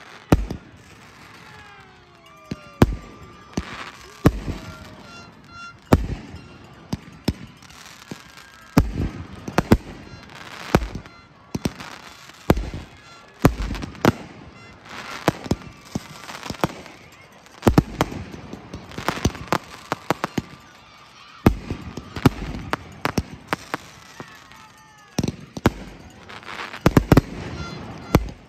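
A fireworks display of aerial shells: dozens of sharp bangs at irregular intervals, sometimes two or three close together. Thin whistling tones slide down in pitch between the bangs.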